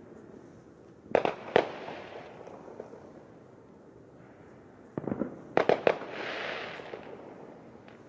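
Fireworks going off: two sharp bangs about a second in, then a quick run of several bangs near the end followed by about a second of hissing crackle.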